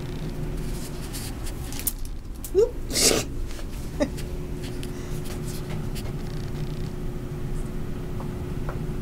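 A cat's short rising chirp, followed straight away by a brief loud rustle, over a steady low room hum.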